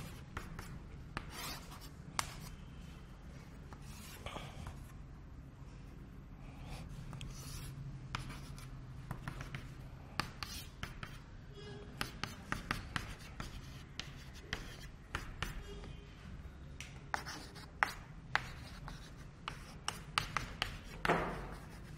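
Chalk on a blackboard: scattered taps and short scratches as figures and equations are drawn and written, over a faint low room hum.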